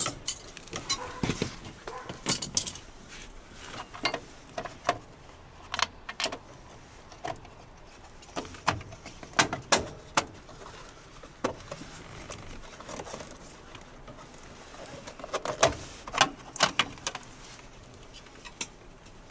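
Irregular clicks, clinks and knocks of hand tools and small metal fittings being worked at a KamAZ 4310 truck's dashboard, the sharpest knock about four-fifths of the way through.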